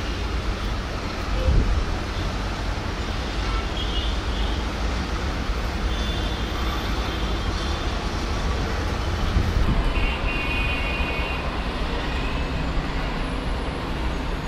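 Jet engines of an approaching SriLankan Airlines Airbus A330-243 (Rolls-Royce Trent 700 turbofans) on final approach: a steady deep rumble with a hissing edge.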